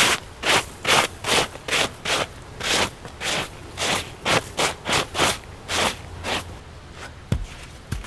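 Rhythmic back-and-forth rubbing strokes, about two and a half a second, stopping about six and a half seconds in, followed a second later by a single knock.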